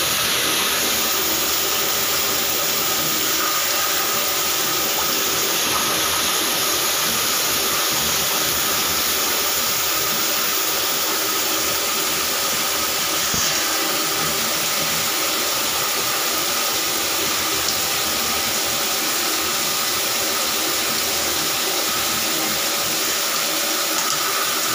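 Electric drain-cleaning machine running steadily, its motor spinning a coiled steel cable that is fed into a clogged bathroom floor drain.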